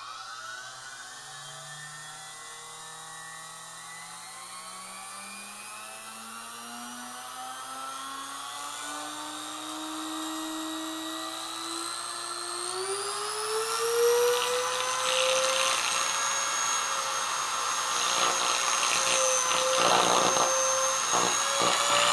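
Hoover Vision 12-amp vacuum cleaner motor, its brush springs shimmed for extra brush pressure, spinning up with a whine that climbs steadily in pitch and steps higher a little past halfway. From about two-thirds in, a harsh crackle of sparking at the brushes and commutator builds over the whine and grows louder toward the end, the sound of the overdriven motor burning out.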